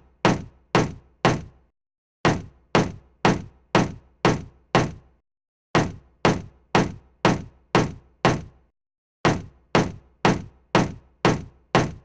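Wood hammer striking in sharp, dry knocks, about two blows a second, in runs of six with short pauses between the runs.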